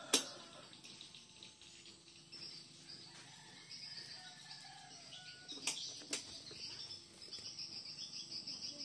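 Faint background of birds chirping and insects trilling, broken by a few sharp clicks about 6 seconds in and once at the start.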